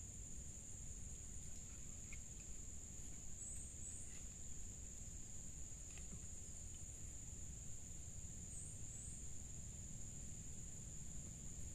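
Steady, high-pitched drone of insects, with a low rumble underneath and a few faint clicks.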